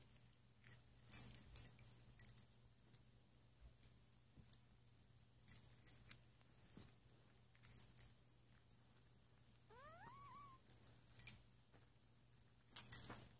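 Faint rustling and jingling from a puppy's collar and fur as it tussles with a cat, in scattered short crackles and clicks. About ten seconds in comes one brief rising animal cry.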